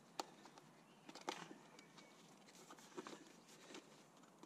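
Faint scattered clicks and taps, about four or five in all, of a motorcycle air box being handled and worked into place under the wiring harness.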